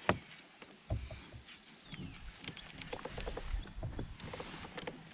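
Light clicks and knocks of handling and gear on a fishing kayak, with low wind rumble gusting on the microphone in the second half.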